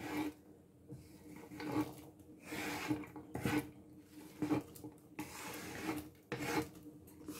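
Wooden spoon scraping across a wooden cutting board in a series of irregular strokes, sweeping chopped leek and celery into a pot.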